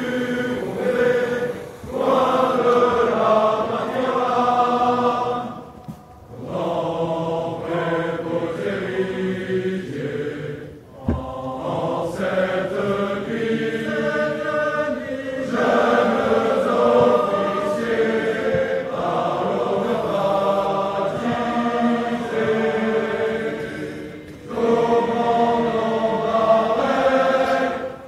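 A large choir of officer cadets singing an ode a cappella, in long sustained phrases with short breaks between them.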